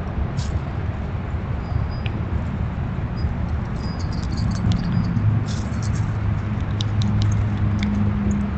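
A steady low rumble, with faint scattered clicks and rustles from black squirrels foraging in dry leaf litter and a few short high peeps.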